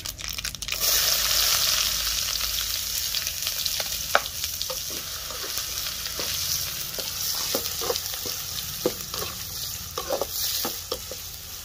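Chopped onions frying in hot groundnut oil in an aluminium kadai: the sizzle rises sharply about a second in as they hit the oil, then runs on steadily. From about four seconds in, a perforated steel skimmer stirring them adds light scrapes and taps against the pan.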